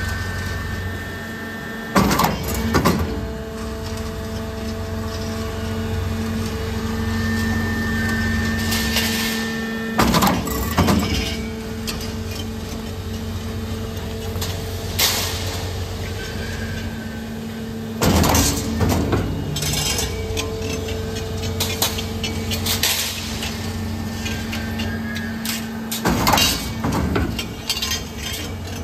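Steel roll forming machine running with a steady motor and hydraulic hum, broken about every eight seconds by a short burst of loud metallic clattering impacts, typical of the cut-off press cutting the formed steel profile to length.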